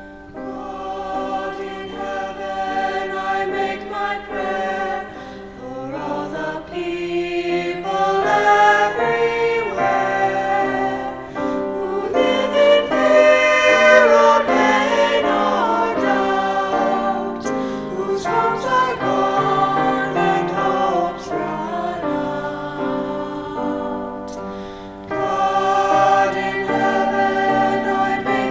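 Church choir singing a slow piece in sustained chords that shift every second or two, swelling to its loudest about halfway through.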